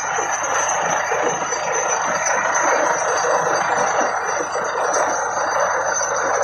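Truck-mounted borewell drilling rig running: a loud, steady mechanical din with a constant high-pitched whine over it.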